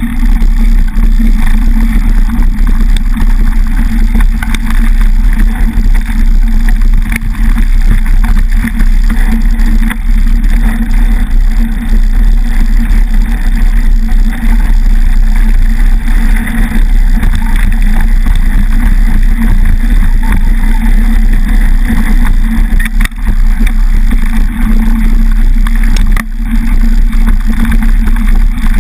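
Loud, steady rolling noise of a mountain bike's knobby front tyre on a gravel dirt track, with the bike rattling over the surface, picked up by a camera mounted by the front wheel.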